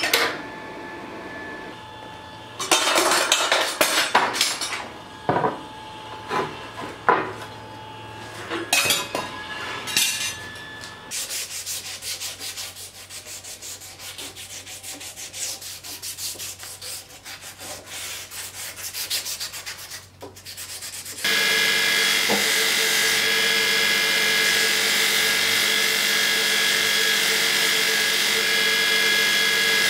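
Scattered metal knocks and scrapes as a sword blade is worked at a bench, then rapid back-and-forth hand sanding of the steel blade in a vice. About two-thirds of the way through a belt grinder cuts in loudly and runs steadily with a held whine, grinding the blade.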